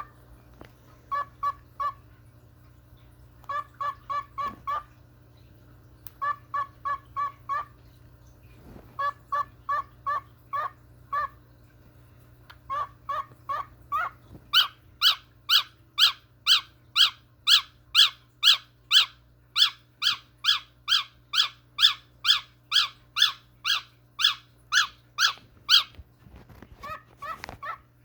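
Cockatiel making baby-like begging chirps: short repeated calls in bursts of four or five with pauses, then from about halfway a long, even run of louder, higher chirps, about two a second.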